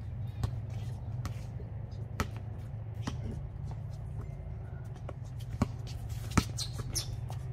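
A basketball bouncing on a concrete outdoor court now and then, about seven separate knocks spaced irregularly, with footsteps and shoe scuffs, over a steady low hum.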